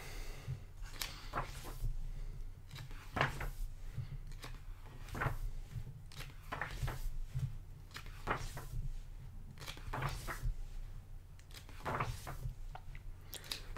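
Pages of a thick hardcover art book being turned one after another, each turn a short papery swish or flap, about every second or so. A steady low hum runs underneath.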